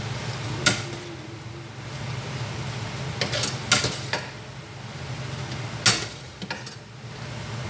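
A metal spoon scooping rice and knocking sharply against a cooking pan about five times, over a steady low hum.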